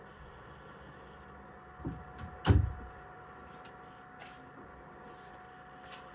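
A heavy thump, with a smaller knock just before it, over a steady low hum, followed by a few short hisses.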